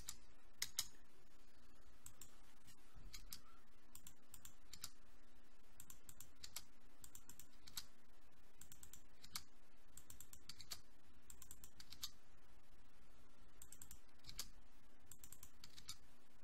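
Sparse, irregular clicks of a computer keyboard and mouse, often in quick pairs or small clusters, as zeros are typed into a row of settings fields one after another.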